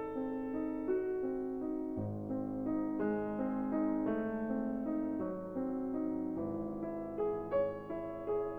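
Soft piano music, a slow flowing run of sustained notes with no voice over it.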